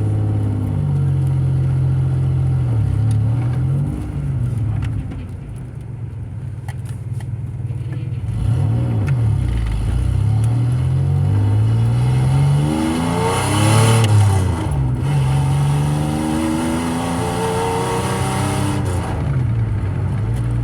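Car engine and exhaust pulling under way, its pitch climbing and then dropping back several times as it accelerates and shifts through gears. The hardest pull comes about two-thirds of the way through, where it is loudest.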